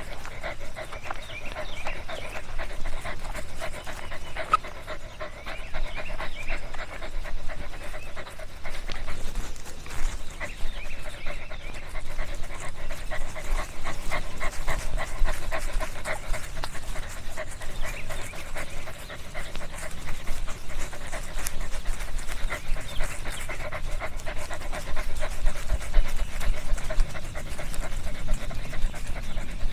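A dog panting quickly and steadily, breath after breath.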